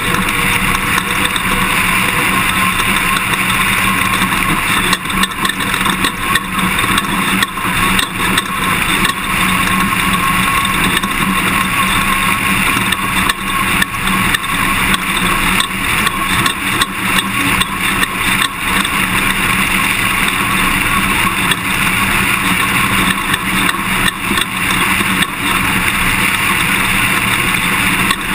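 Toyota Tundra pickup driving a dirt off-road race course, its engine and road noise steady. Frequent short knocks and rattles come as it hits bumps, more of them from about five seconds in.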